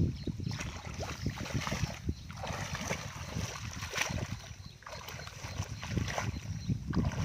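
Wind buffeting the microphone: an irregular low rumble that swells and drops in gusts.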